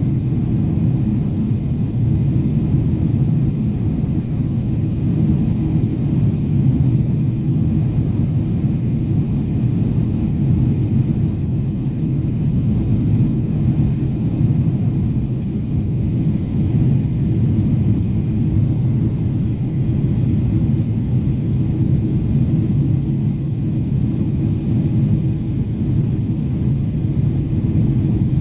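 Airliner cabin noise heard from a window seat during the descent: a steady rumble of jet engines and rushing air, with a faint constant hum.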